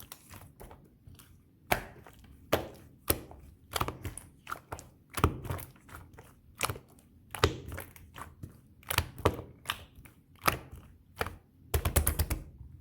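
Slime being pressed and squished by hand, giving sharp clicks and pops at irregular intervals, about one or two a second, with a quick run of them near the end.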